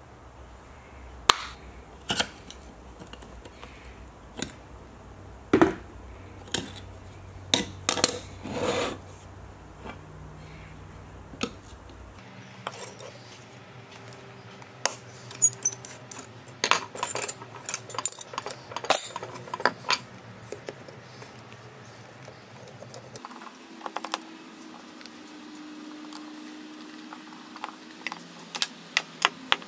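Irregular metallic clinks, taps and scrapes of a rusty Bailey No. 4 hand plane being taken apart on a wooden workbench: iron and steel parts handled and set down, and a screwdriver worked on the blade assembly's screw.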